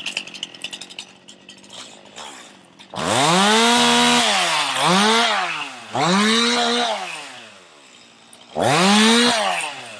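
Stihl MS 261 C two-stroke chainsaw idling, then revved to full throttle four times in bursts of about a second. Each burst rises sharply in pitch and drops back to idle.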